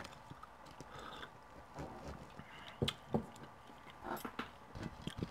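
Close-miked eating sounds of toast and fried eggs: soft chewing and mouth noises, with a few sharp clicks of a knife and fork against plates, the sharpest about three seconds in.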